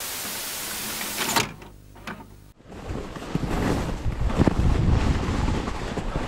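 Wind noise rushing over the microphone, with an abrupt cut about two and a half seconds in, after which it comes back as a low, gusty rumble with scattered scrapes.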